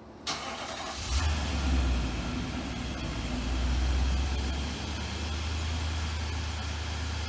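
2022 Nissan Patrol Y62's 5.6-litre V8 being started. The starter cranks briefly, and about a second in the engine catches with a deep low rumble that flares up, then settles into a steady idle.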